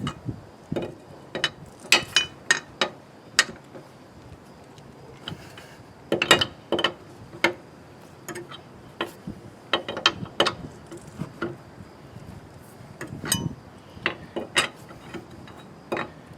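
Lug wrench turning and tightening the lug nuts on a car's spare wheel: sharp metal clicks and clinks in irregular bursts, with short pauses between them.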